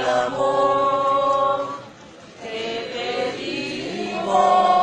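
Nuns singing a hymn together in unison, holding long notes, with a short pause for breath about two seconds in.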